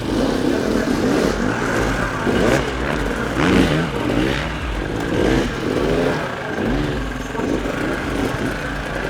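Enduro dirt-bike engines revving hard, the pitch rising and falling again and again as riders work the throttle through an obstacle section.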